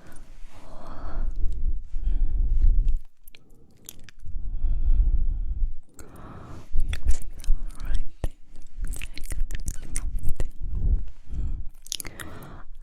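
Close-miked ASMR mouth sounds: wet clicking and smacking with a crunchy, chewing-like texture, in several runs separated by a short pause about three seconds in.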